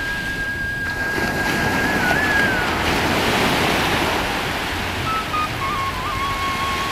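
Sea surf breaking and washing up a sandy beach: a steady rushing that swells about halfway through, with a faint thin steady tone over it.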